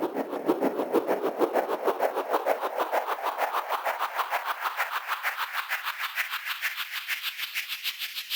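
Synthesized uplifter riser sound effect: a rapidly and evenly pulsing noise sweep that starts suddenly and climbs steadily in pitch, building tension.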